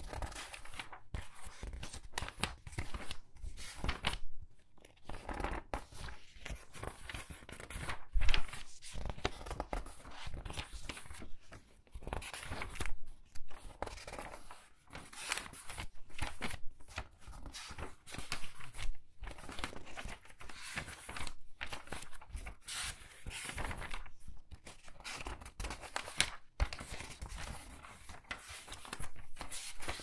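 Thin paper pages of a large hardback book turned quickly by hand, one after another: a continuous run of short papery swishes and flutters, with one louder page flip about eight seconds in.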